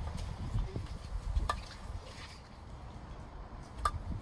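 Two sharp cracks of a golf driver striking the ball off the tee, about a second and a half in and again near the end, each with a brief metallic ring. Low wind rumble on the microphone underneath.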